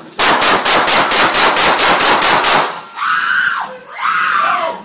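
Police Taser discharging: a rapid, even run of sharp clicks, about seven a second, for over two seconds. The clicking stops and a voice cries out twice.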